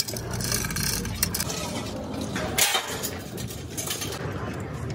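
Workshop background with a steady low hum and a few short metallic clinks and knocks, as of tools or engine parts handled.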